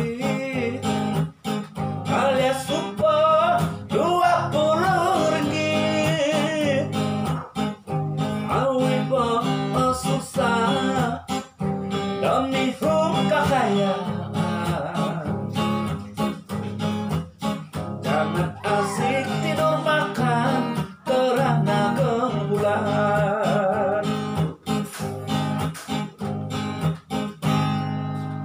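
A man singing to his own strummed acoustic guitar accompaniment.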